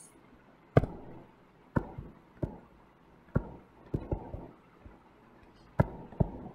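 Stylus tapping on a touchscreen during handwriting: a series of about eight sharp, short taps at uneven intervals, one at the start of each pen stroke.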